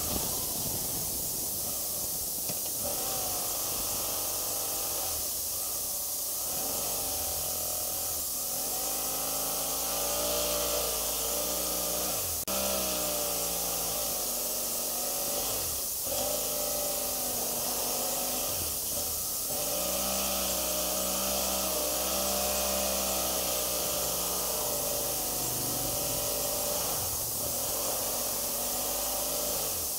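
Wind hiss on the microphone over a BMW F700GS motorcycle's parallel-twin engine running at low speed, its pitch rising and falling with the throttle while splitting lanes in slow traffic.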